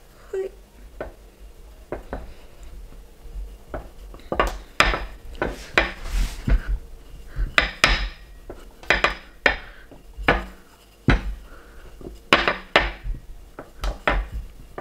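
Rolling pin rolling out dough balls on a kitchen counter: irregular knocks and clacks as the pin is set down, lifted and rolled, with short rolling rumbles between them, busiest in the second half.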